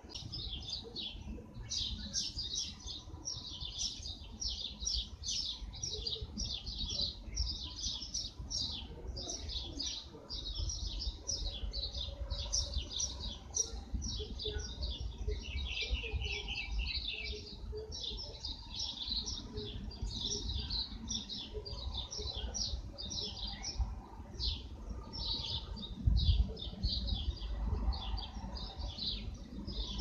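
Small garden birds chirping, a dense run of short, high notes in quick succession, over a low rumble. A louder low thump comes near the end.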